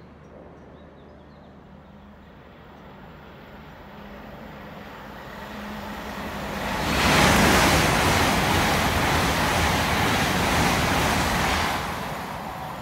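Great Western Railway Class 800 IET express train passing through the station: a rushing, rumbling noise that builds over several seconds, stays loud for about five seconds as the train goes by, then begins to fade near the end.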